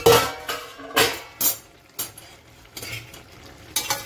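Stainless steel kitchen metal clanking: a steel pan lid and a steel spatula knocking and scraping against a steel pan. There is a loud clank right at the start, then about half a dozen lighter clinks spread over the next few seconds.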